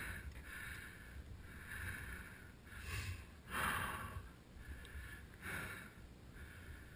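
A motorcycle rider panting hard after a strenuous climb, with short quick breaths about one or two a second and one deeper breath in the middle, over a low steady rumble.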